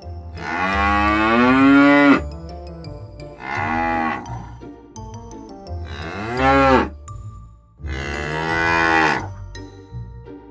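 Cattle mooing: four separate calls, the first long and the others shorter.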